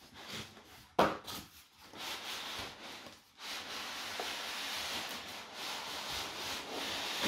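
Cardboard box sleeve being worked off a polystyrene foam box: cardboard rubbing and scraping against the foam, with a sharp knock about a second in and a long steady scrape from about three seconds in.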